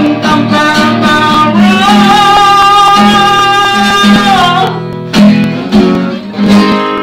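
Instrumental ending of an unplugged pop-rock ballad on guitar. A long note is held through the middle, then a few last chords are struck near the end and ring out, fading.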